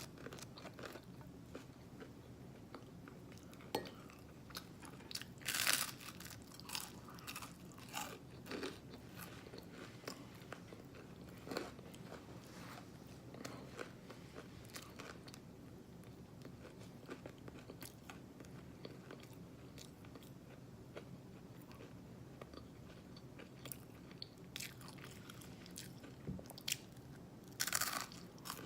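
Close-miked chewing of Eggo cinnamon waffles, with wet lip smacks and mouth clicks at an irregular pace. A couple of louder smacks come about six seconds in and near the end.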